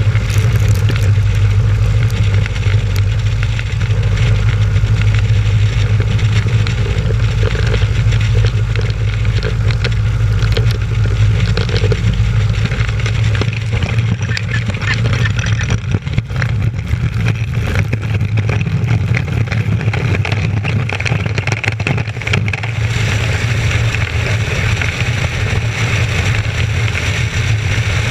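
Piper Pacer light aircraft's piston engine and propeller running at high power for takeoff: a steady, loud drone with a rushing hiss over it that grows stronger near the end.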